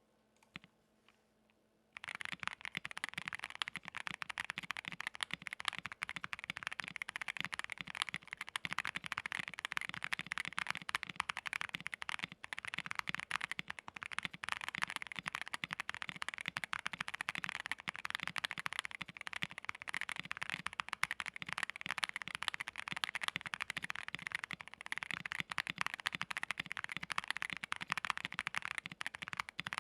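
Continuous fast typing on a QK65 R2 mechanical keyboard with a POM plate, case, plate and PCB foam, and stock Boba LT linear switches, giving a soft, creamy keystroke sound. The keystrokes start about two seconds in and run as a dense, even stream of clicks.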